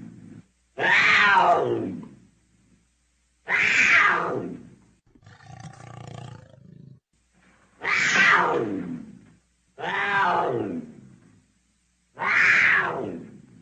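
Leopard calling: a series of about five drawn-out calls, each falling in pitch and lasting about a second and a half, with short gaps between them. A quieter, rougher call comes near the middle.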